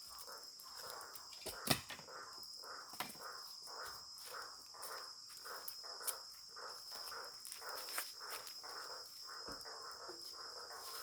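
Night insects, crickets, chirping steadily, with a lower pulsing call repeating about twice a second. A few sharp crackles and pops from the campfire stand out over it.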